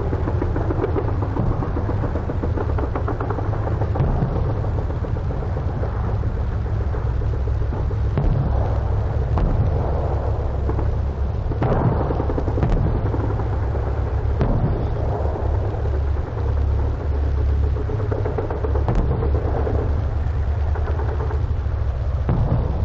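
British and German machine-gun fire in a 1944 battlefield field recording: rattling bursts near the start, then scattered sharp single reports, over a steady low rumble.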